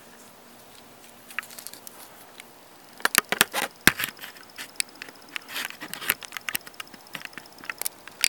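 A flurry of irregular clicks, taps and rustling, starting about three seconds in and loudest at first, with a faint steady high whine joining about a second later.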